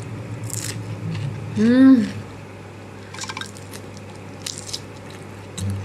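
Close-up eating sounds: a person biting and chewing crisp vegetables and lettuce, with scattered wet crunches and mouth clicks. About two seconds in, a short hummed 'mmm' of enjoyment rises and falls once.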